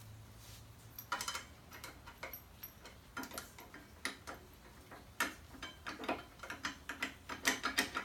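Irregular small metallic clicks and taps as motorcycle brake pads and caliper parts are worked by hand, trying to seat a pad that will not go all the way down. The clicks come quicker near the end.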